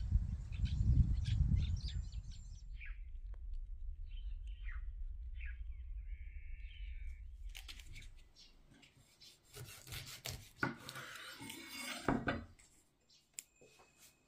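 Wind rumbling on the microphone with birds chirping. About eight seconds in, a kitchen knife saws and scrapes through the plastic casing of a tube of soft tofu on a wooden cutting board, with a few sharp knocks of the blade on the board.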